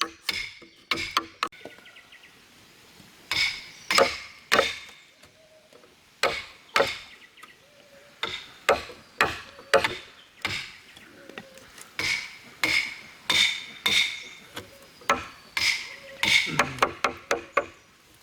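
Hammer blows on wood, irregular sharp strikes with a short metallic ring. A few quick taps, a pause of about two seconds, then steady blows at roughly two a second.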